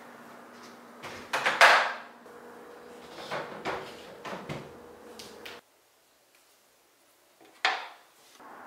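Handling noises around a metal step ladder and a small plastic camera: a few knocks and scrapes, the loudest a short scraping clunk about a second and a half in, then a silent gap and one more sharp knock near the end.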